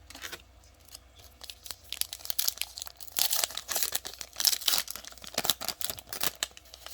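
The plastic wrapper of a trading card pack being torn open and crinkled by hand, as a quick crackling rustle that builds from about two seconds in.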